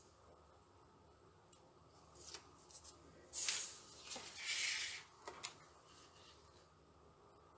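Card stock and paper being handled by hand: a few short papery rustles and scrapes, the two loudest about three and a half and four and a half seconds in, followed by a couple of light taps.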